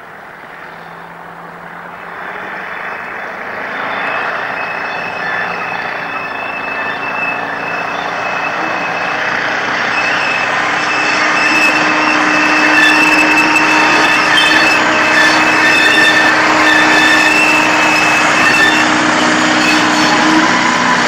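Small diesel shunting locomotive running as it hauls a train of wagons past, getting steadily louder as it nears. From about halfway through, high-pitched wheel squeal rides on top.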